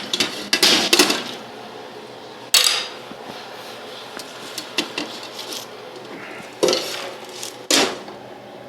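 Pans and utensils clattering in a kitchen: a quick run of knocks in the first second, then single clanks at about two and a half, seven and eight seconds in.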